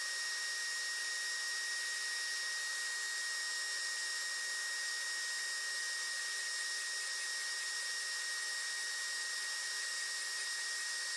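Chevalier surface grinder running, its wheel grinding a thousandth of an inch off the end of a plate: a steady hiss with a high whine that holds even throughout.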